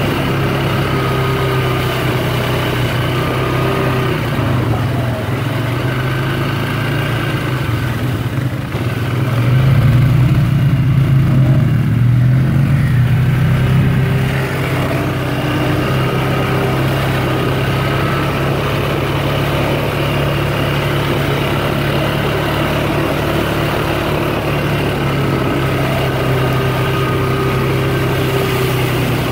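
Polaris Sportsman ATV engine running steadily under way, heard from on board, growing louder for a few seconds about a third of the way in before settling back.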